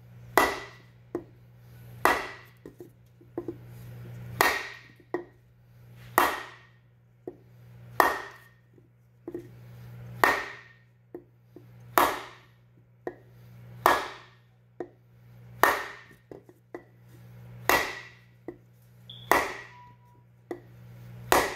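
A hammer striking a wooden block set on a pump impeller, driving the impeller down onto its keyed shaft: a steady run of sharp knocks, about one every two seconds, each with a short ring and a lighter knock or two in between.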